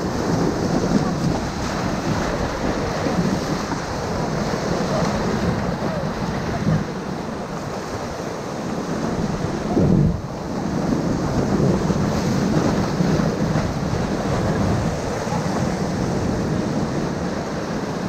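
Whitewater rapids rushing and churning around an inflatable raft, a dense steady roar of water. There is one brief louder thump of water about halfway through.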